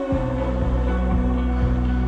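Background music: held tones over a steady low beat.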